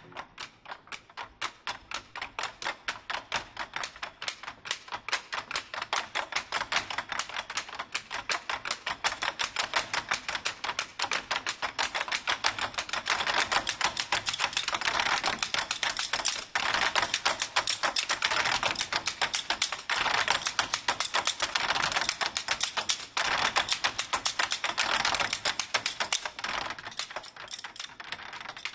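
Drumsticks clicking rapidly on the wooden rims of Chinese barrel drums, an even, fast patter of dry clicks with almost no booming drum-head tone. It grows louder and denser about twelve seconds in and eases a little near the end.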